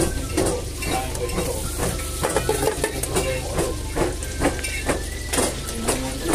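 Food sizzling in a wok while a utensil stirs and scrapes against the pan in repeated strokes.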